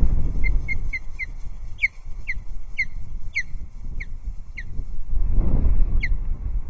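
Ospreys calling: a run of short, sharp whistled chirps, about two a second, tapering off with one last chirp near the end, over wind rumbling on the microphone.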